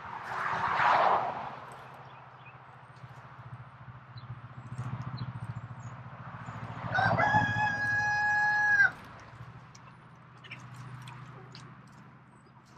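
A rooster crows once, a single drawn-out call of about two seconds, a little past the middle. A brief rustle comes near the start.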